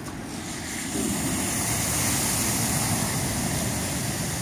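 A car driving through deep floodwater on the road, its wheels throwing up a rush of spray. The splashing swells about a second in and eases off toward the end as the car moves away.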